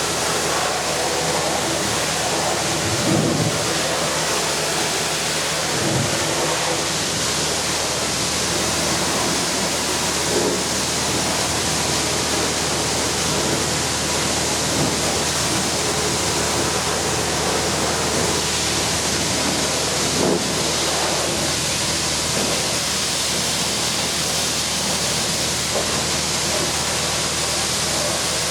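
Pressure washer spraying water in a steady, loud hiss against the machine, with a low steady hum from the washer's pump or engine underneath.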